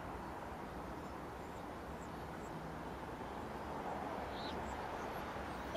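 Steady outdoor garden ambience: a low background rumble, with a few faint bird chirps about four and a half seconds in.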